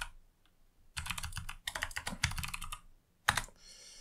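Computer keyboard typing: a quick run of keystrokes for about two seconds, then a pause and one louder keystroke a little after three seconds.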